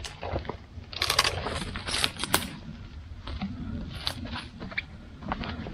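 Dry bark being pried and torn off a dead conifer trunk by gloved hands: irregular cracking and splintering snaps with rustling between them, the sharpest cracks about one to two and a half seconds in, then fainter crackles.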